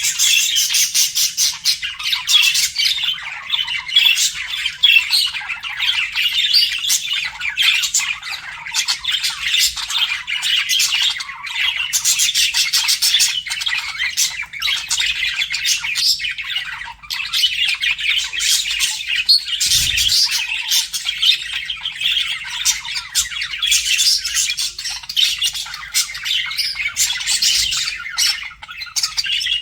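Budgerigars chattering and warbling without pause: a dense run of quick squawks, chirps and twittering notes, the courtship chatter of budgies flirting.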